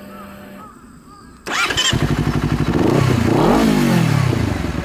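Honda CBR250RR motorcycle started up: a faint steady hum from the just-switched-on ignition stops about half a second in, then the starter cranks and the engine catches about a second and a half in. It gets one blip of the throttle, rising and falling in pitch, and settles to a steady idle.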